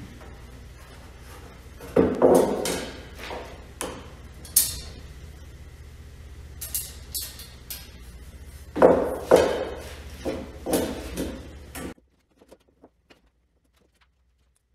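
Sheet-metal panels of a router-table dust bucket clanking and rattling as they are handled and screwed together. The knocks come in two clusters, about two seconds in and again about nine seconds in, over a low steady hum, and all sound cuts off suddenly near the end.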